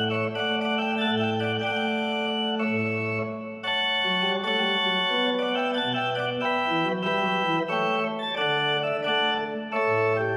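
Chest organ built by Henk Klop being played solo: several sustained pipe notes sounding together, the bass and upper voices moving in steps from chord to chord. The sound breaks off briefly about three and a half seconds in between phrases, then carries on.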